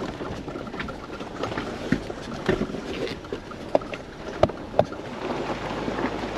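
Off-road 4x4 driving slowly over a rough rocky trail: a steady rumble of tyres and drivetrain with irregular knocks and rattles from the body and the rocks.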